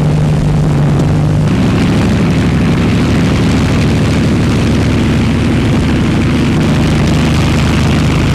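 Propeller aircraft's engine droning steadily in flight, its pitch shifting about a second and a half in, over the hiss of an old film soundtrack.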